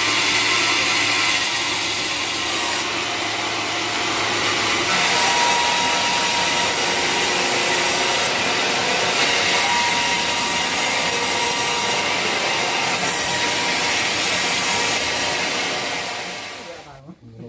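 Sawmill blade cutting lengthwise through a waru (sea hibiscus) log: a steady, loud, high-pitched sawing noise that dies away near the end.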